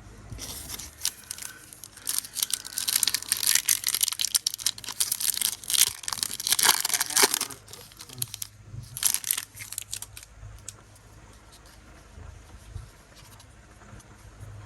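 Foil Pokémon booster pack wrapper being torn open and crinkled: a crackling rustle that lasts about five seconds, a shorter rustle a little later, then only faint handling noise.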